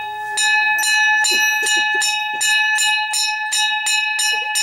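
Temple bell rung rapidly and evenly, about three to four strikes a second, each strike ringing on into the next.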